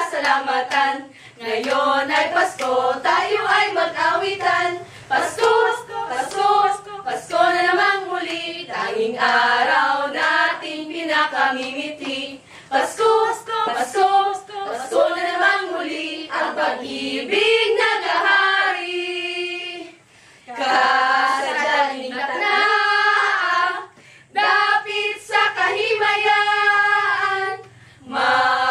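A small group of women singing a Christmas carol together without instruments, with hand clapping along, and short breaks between phrases.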